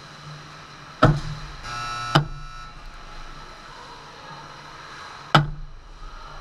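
Three sharp cracks of shots hitting the goal close by: about a second in, just after two seconds, and past five seconds. A ringing tone lasts about a second between the first two.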